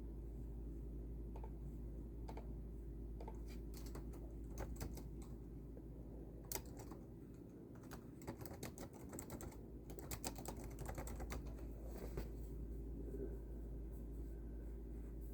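Typing on a computer keyboard: irregular keystrokes in uneven bursts, quickening in the middle and stopping near the end, over a steady low hum.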